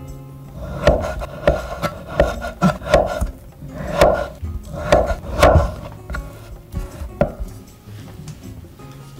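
Kitchen knife slicing through a peeled avocado and knocking on a wooden cutting board, about nine cuts, mostly in the first seven seconds, over light background music.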